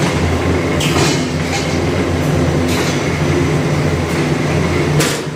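Automatic corrugated carton folder-gluer machine running: a steady low mechanical hum with a few sharp clacks.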